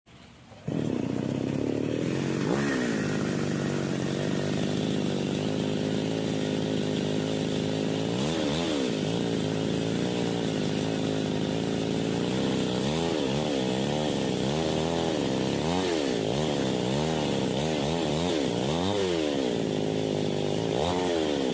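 Small chainsaw running and cutting wood. It starts about a second in and runs steadily, then from about eight seconds on its pitch dips and rises again and again.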